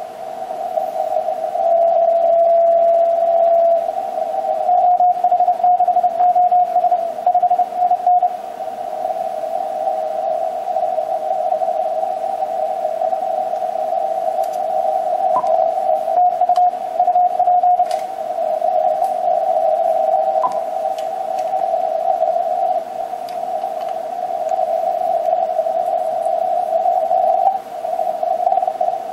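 Icom HF transceiver receiving Morse code (CW) on the 40-metre band: several overlapping keyed tones at nearly the same high pitch, with hiss and static crackles.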